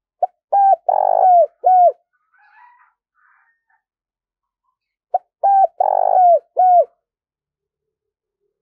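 Spotted dove cooing: two phrases, about three seconds apart, each a run of four or five mellow notes with a longer, louder note in the middle and the last notes falling away.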